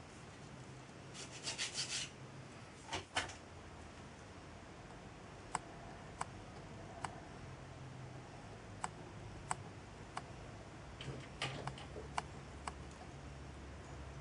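A small hand file rasping on a small brass part: a quick run of strokes, then two more. After that, sparse light clicks of small brass fittings being handled and fitted together.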